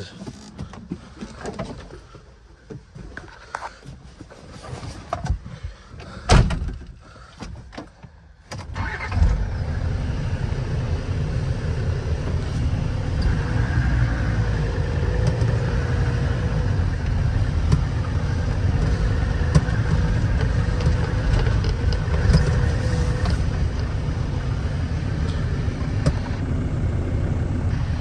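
Scattered knocks and one loud knock about six seconds in, then a vehicle engine starts abruptly about eight seconds in and runs steadily with a low rumble.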